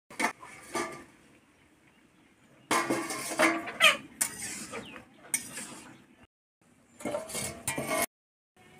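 A metal spatula scraping and clinking against a steel kadai as chopped mahua fruit is stirred, in several short bouts broken by abrupt gaps. The loudest stretch is about three to four seconds in.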